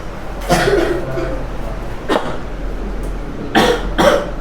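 A man's voice is heard briefly, then two short harsh bursts come near the end, over a steady low electrical hum.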